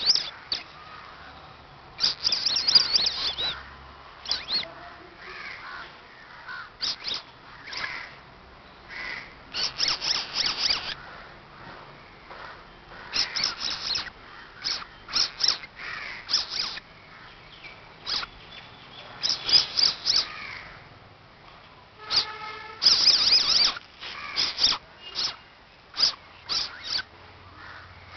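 Baby civet's high-pitched squeaking calls, in short bursts and clusters that come every second or two.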